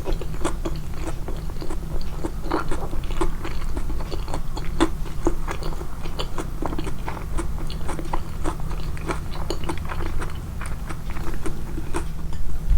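Close-miked chewing, with the mouth sounds amplified: a run of irregular wet clicks and light crunches as food is bitten and chewed.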